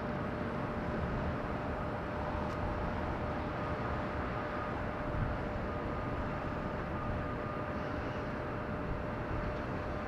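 Distant Boeing 747-8 jet engines at takeoff thrust as the airliner begins its roll: a steady rumble with a thin steady whine.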